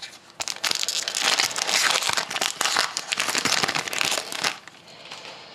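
A foil trading-card pack wrapper crinkling as it is torn open and handled: a dense run of crackles lasting about four seconds, dying away near the end.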